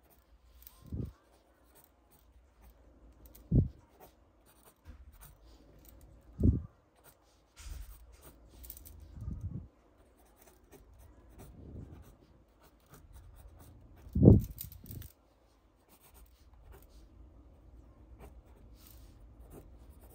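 Pencil sketching on paper: soft scratching strokes of the graphite across the sheet, broken by a few short, dull thumps, the loudest about two-thirds of the way through.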